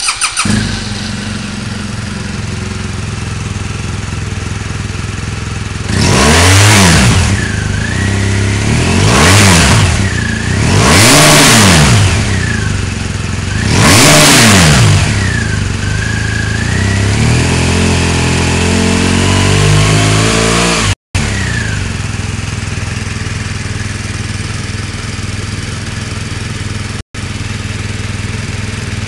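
2013 BMW R 1200 GS air/liquid-cooled boxer-twin engine heard at the exhaust silencer, idling and then blipped sharply four times, each rev rising and falling quickly, followed by a slower, longer rev before settling back to a steady idle. The exhaust note is sharp and loud.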